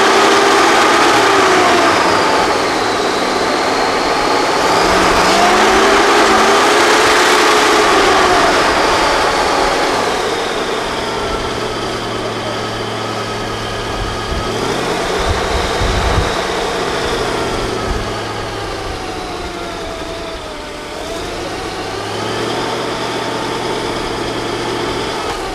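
Six-wheel-drive off-road trial truck's engine revving up and down as it works its way down a steep dirt slope, louder for the first several seconds and then easing to a lower, steadier run.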